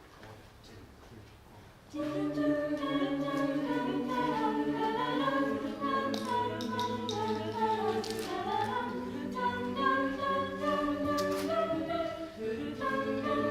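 A cappella vocal ensemble that comes in about two seconds in, singing wordless opening chords: several voices hold close harmonies over a low bass part, with a few short hissy accents along the way.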